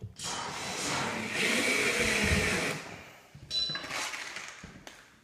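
Cordless drill running under load into hardwood: one long run of about two and a half seconds that grows louder before stopping, then a shorter burst a second later.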